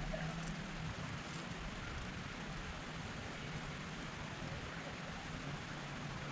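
Steady outdoor hiss with a low hum underneath, and a couple of faint ticks in the first second or two.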